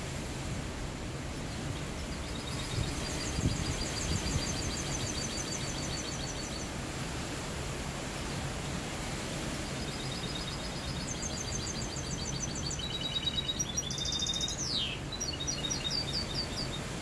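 Caged mixto, a canary-cross hybrid finch, singing clean song: a string of rapid, high trilled phrases, a pause of a few seconds, then more fast trills ending in a quick falling note near the end. Steady background noise runs underneath.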